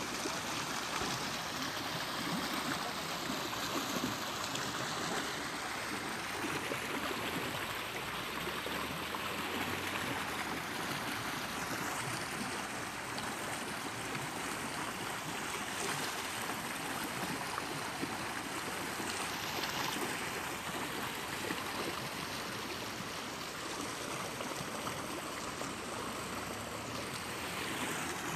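Muddy floodwater rushing steadily along a washed-out roadside channel after a torrential downpour.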